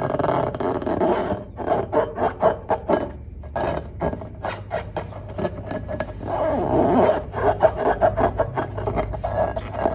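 Glossy slime being kneaded and squeezed by hand, squelching with a dense, irregular run of sharp clicks and crackles as trapped air pops.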